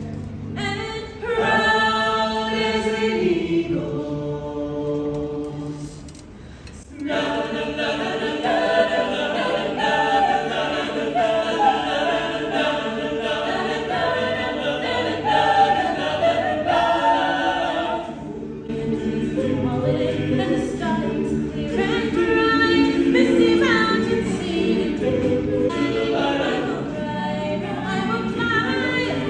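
A cappella vocal group singing in close harmony, several voices with no instruments, with short breaks about six seconds and eighteen seconds in.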